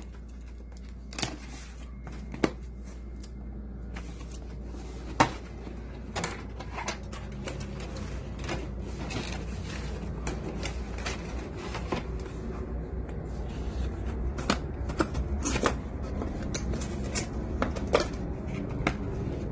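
Cardboard laptop box being handled and opened: a few sharp knocks in the first five seconds, then a run of light taps, scrapes and rustles that gets busier in the second half as the lid is lifted and the wrapped laptop inside is handled. A steady low hum runs underneath.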